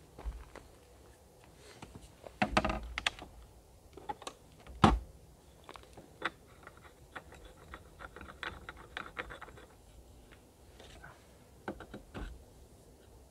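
Fishing tackle being handled at a seat box: a clatter of knocks about two and a half seconds in, a sharp knock near five seconds, then a run of small light clicks, and a few more knocks near the end.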